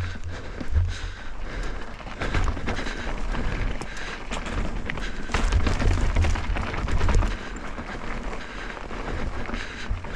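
A Canyon Neuron full-suspension mountain bike ridden over rocky trail: tyres and bike clattering and rattling over rock, with repeated low thumps of wind and impacts on the camera's microphone.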